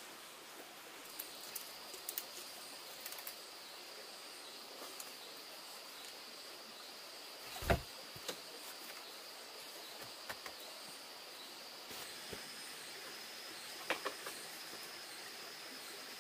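Scattered light clicks and knocks, with one heavier thump about eight seconds in. A steady high-pitched tone runs in the background from about a second in.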